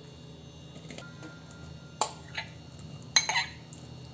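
Cut strawberries tipped from a glass bowl into a stainless steel pot, with a few sharp knocks and clinks in the second half.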